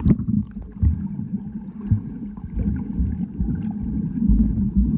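Muffled low rumble of moving stream water with irregular thumps and bumps, as heard by a camera held underwater.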